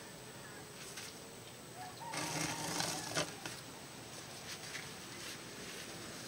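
A bird calls once, lasting about a second, a little over two seconds in, over faint steady background noise.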